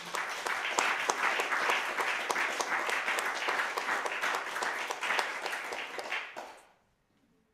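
Applause: many quick hand claps that fade out about six and a half seconds in.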